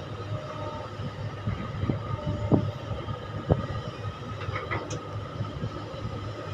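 Mark 5 hydraulic excavator working a load into a dump truck: its diesel engine drones steadily, with a few sharp knocks around the middle and a brief high squeak shortly after.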